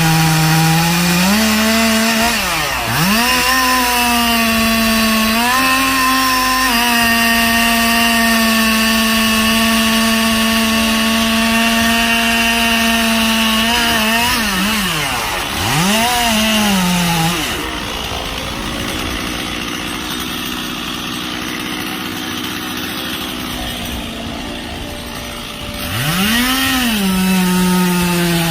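Two-stroke chainsaw running at high revs with a steady high pitch. The pitch drops and climbs back as the throttle is let off and opened again: about three seconds in, around the middle, and near the end. For several seconds in the second half it runs quieter.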